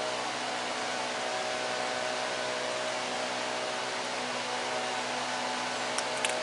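Steady hiss of background noise with a faint steady hum running under it; two short clicks near the end.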